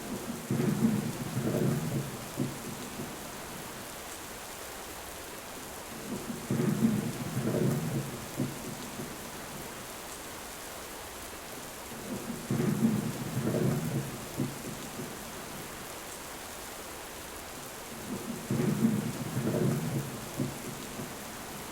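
Steady rain falling, with thunder rumbling four times, about every six seconds. Each roll lasts two to three seconds and has the same shape, as if one thunder recording were repeated.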